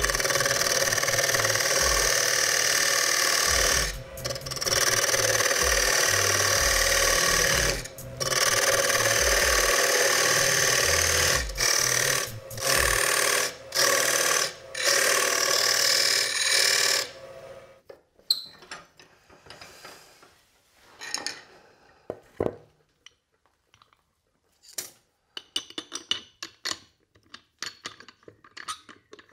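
A turning tool cutting into the face of a wooden disc spinning on a lathe: a loud, steady scraping hiss that breaks off several times as the tool is lifted. After about 17 seconds the cutting stops, leaving scattered clicks and knocks of handling metal and wood.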